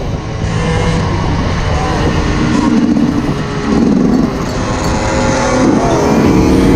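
Yamaha YZ125 single-cylinder two-stroke engine running while the bike is ridden, its pitch holding fairly steady with brief dips and small rises as the throttle changes.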